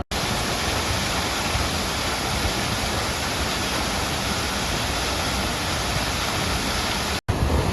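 Steady rushing water of a river rapids ride, an even roar with no change in level. It stops abruptly near the end and comes straight back.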